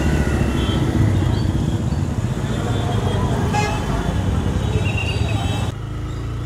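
Motorcycle riding through street traffic: the TVS Raider 125's single-cylinder engine running under a low, steady rumble of engine and wind noise, with short horn toots from vehicles nearby. The hiss thins out near the end.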